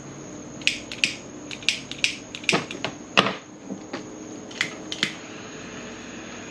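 Butane torch lighter being handled and clicked, about a dozen short sharp clicks spread over four seconds, with a couple of louder knocks near the middle.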